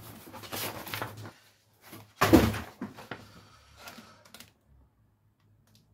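Plastic packaging and paper rustling as the unboxed items are handled, with one heavy thud about two seconds in as something is set down on the table. Fainter handling sounds follow, then it goes quiet.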